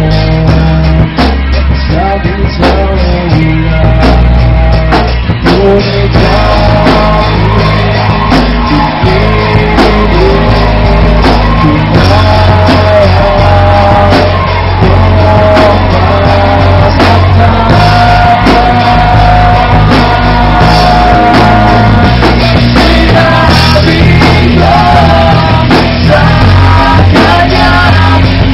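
Rock band playing live and loud: a male singer over electric guitars and a drum kit.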